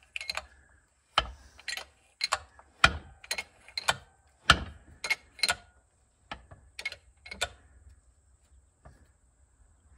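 Jack-operated shop press pressing a cast impeller onto a John Deere 3300 combine water pump shaft. It makes a run of sharp metallic clicks and clanks, irregular at about two or three a second and some in pairs, which stop about three quarters of the way through.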